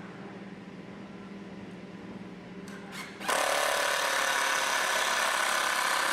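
Power drill driving a screw into cedar log: a short blip about three seconds in, then the drill runs steadily for about three seconds and stops.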